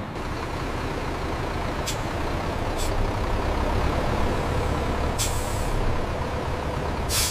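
Coach's diesel engine idling with a steady low rumble, while compressed air hisses out of the air-brake system four times; the last two hisses, near the middle and at the end, are longer and stronger.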